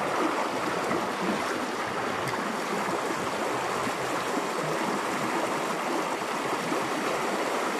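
River water rushing steadily over a shallow riffle of white water.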